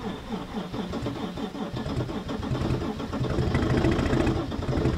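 Mercedes E320 CDI's OM648 inline-six turbo diesel cranking on a hard cold start at about −30 degrees, then picking up and running unevenly, louder from about three seconds in. The owner puts the hard starting down to bad fuel injectors, since the glow plugs are new.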